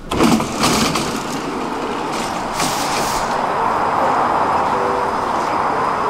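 Stockholm metro train noise: it comes in abruptly with a few sharp clicks, then settles into a steady rushing rumble that grows slightly louder.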